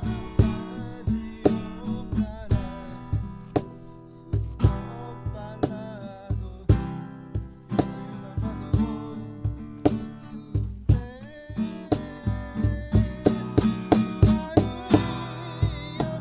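Music: strummed acoustic guitar over a steady beat of about two strong hits a second, with a wavering melody line above.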